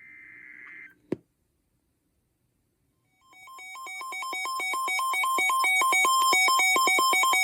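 Emergency alert audio between two broadcast warnings: a short buzzy data burst at the start and a sharp click about a second in, then from about three seconds a loud electronic alert tone rapidly alternating between two pitches, swelling in level, announcing the next warning.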